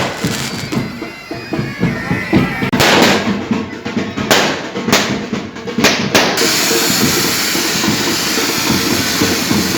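Fireworks going off, about six sharp bangs in the first six seconds, then a steady hiss, over loud band music.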